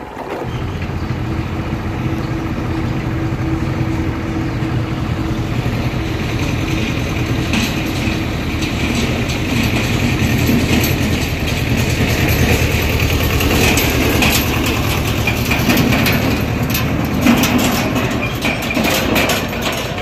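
Tractor engine running with a steady low drone that grows louder as it draws near, and from about seven seconds in a clattering rattle joins it, as of the trailer jolting along a rough track.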